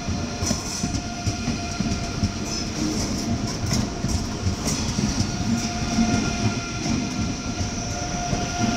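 DB ICE 3 (class 406) electric multiple unit rolling past on its way out of the station: a steady rumble of wheels on rails with a steady high whine and a few sharp clicks.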